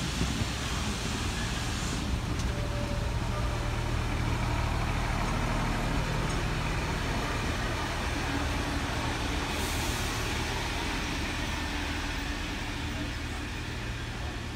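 Heritage passenger carriages of steam locomotive 3801's train rolling past at a steady pace: a continuous running noise of steel wheels and bogies on the rails.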